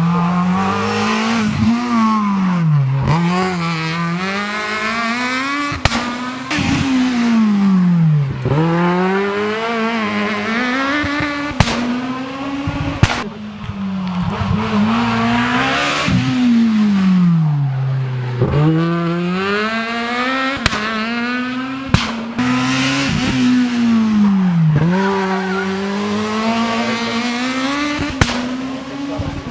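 Rally car engine driven hard along a twisting mountain stage. Its pitch climbs as it accelerates and drops back as it brakes and shifts down, over and over every few seconds, with sharp cracks now and then.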